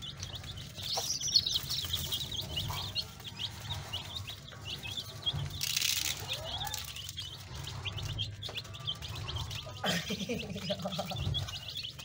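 A brood of baby chicks peeping continuously, many short high chirps overlapping several times a second. A brief hiss comes about six seconds in.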